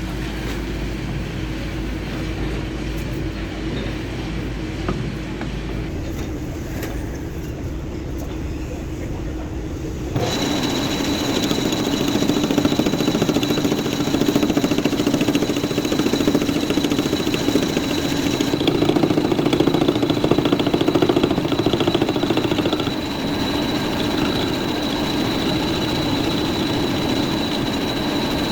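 Workshop machinery running steadily with a low hum. About ten seconds in it cuts abruptly to a louder stretch with a steady high whine over the hum.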